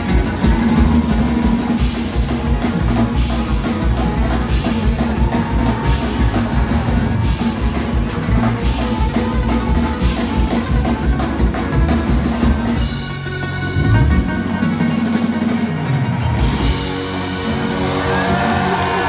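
Live country band playing an instrumental passage: fiddle, strummed acoustic guitars and a drum kit keeping a steady beat. About thirteen seconds in, the low drum beat breaks off briefly.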